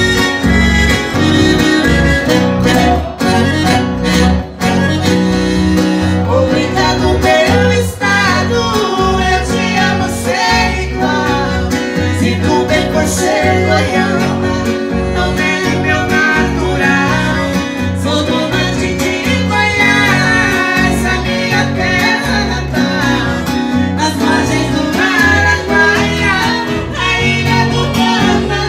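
Sertanejo raiz music played live on piano accordion, acoustic guitar and electric bass, with a steady bass rhythm. A man and a woman sing the vocals.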